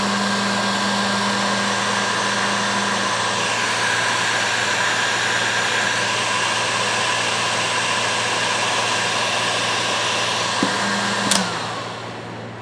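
Heat gun blowing steadily as it shrinks heat-shrink tubing onto plier handles. Near the end it is switched off with a click, and its fan whine falls away as it winds down.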